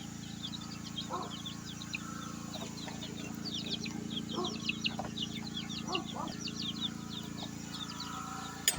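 Baby chicks peeping: many short, high, falling cheeps with a few lower calls mixed in, over a steady low hum.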